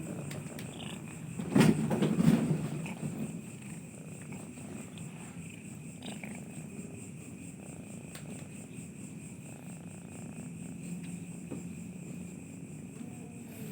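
Two domestic cats in a fight: a sudden loud outburst about a second and a half in, then a long low growl.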